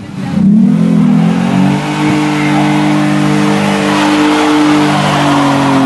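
Nissan V6 bakkie's engine revving during a burnout: the revs climb over the first two seconds and are then held high and steady while the rear wheels spin.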